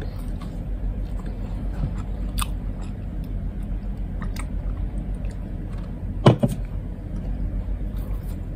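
Close-up chewing and mouth sounds of someone eating rice and braised pork (humba), with scattered small clicks over a steady low hum. A sharp knock with a smaller second one comes about six seconds in.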